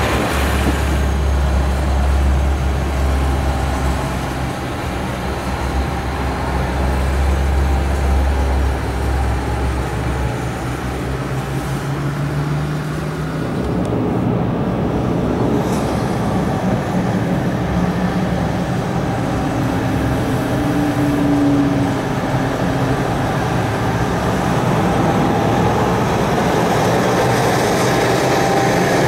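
A Rhaetian Railway locomotive passing a level crossing, heard from inside a car with its engine running. About halfway through the sound changes as the car drives off.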